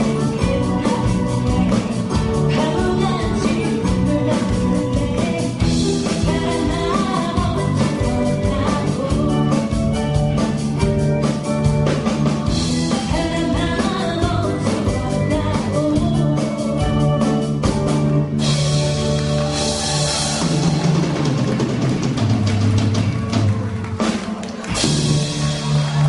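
Live band playing a song with singing, drum kit and guitar, with cymbal crashes near the end.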